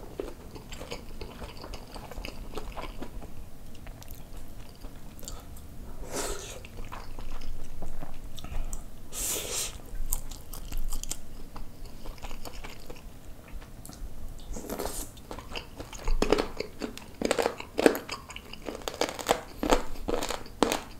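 Close-miked chewing of spicy braised kimchi and pork belly with rice: wet smacking and crunching mouth sounds. A few louder breathy bursts break in, the loudest about halfway through, and the chewing clicks come quicker and sharper over the last few seconds.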